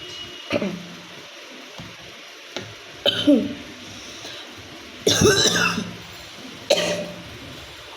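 A woman coughing in a series of about five separate sharp coughs, with a longer, harsher cough about five seconds in. It is a real cough from a bad cold.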